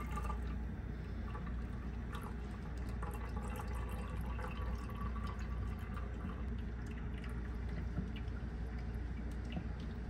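Blended rice milk pouring from a pitcher through a fine mesh strainer and trickling into a glass jar, a steady liquid trickle.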